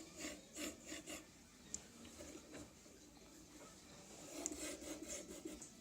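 Anet E10 3D printer's bad bearings rasping and rubbing as the moving axis travels along its rods, in an uneven series of short scraping strokes, bunched near the start and again about four and a half seconds in. The harsh rasp is the sign of worn bearings.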